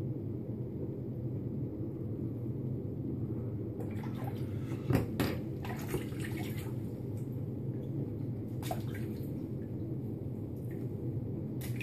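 Tap water running into a bathroom sink while a safety razor is rinsed, with a cluster of splashes and sharp knocks from about four seconds in, the loudest about five seconds in.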